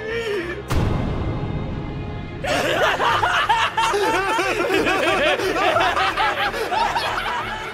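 A sudden loud hit a little under a second in, then two male voices laughing maniacally, their laughs overlapping, over music.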